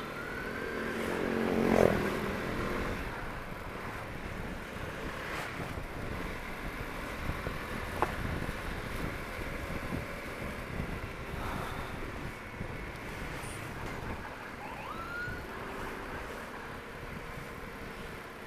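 Emergency-vehicle siren giving short rising whoops, one at the start and another near the end, over steady traffic and road noise. A brief loud swell comes about two seconds in.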